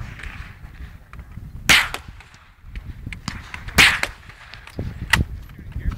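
Three sharp rifle shots with a short echo tail each, coming about two seconds in, near four seconds, and just after five seconds; the first two are the loudest.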